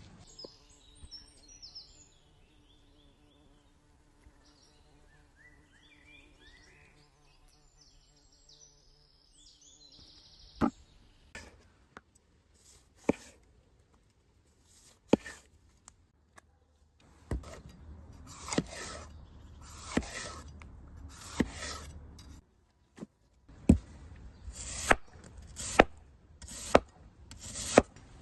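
Faint birdsong at first, then a knife striking a cutting board: a few single chops about ten seconds in, becoming a quicker, uneven run of chopping strokes with a swishing scrape in the second half.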